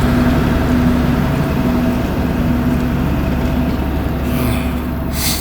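Steady low engine hum with a rumble underneath, like a vehicle idling, with a short hiss near the end.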